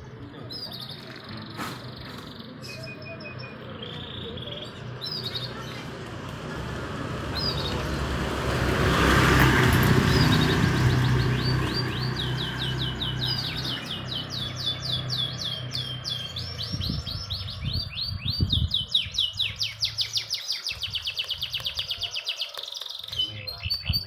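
A motorcycle passes along the street, rising to its loudest about ten seconds in and then fading. Caged domestic canaries chirp, and over the second half they sing long, fast trills of rapidly repeated high notes.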